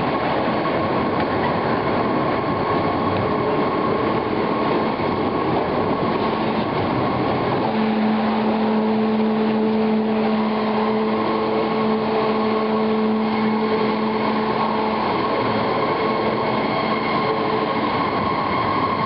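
Natural-rubber processing machinery running, crushing and washing lumps of coagulated rubber under water sprays. It makes a steady, loud mechanical din with a hum that strengthens about eight seconds in.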